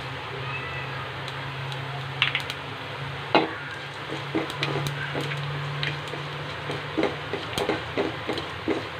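Wooden spatula stirring and scraping in an aluminium pot, with sharp knocks about two and three and a half seconds in and quicker tapping over the last couple of seconds, over a steady hiss and low hum.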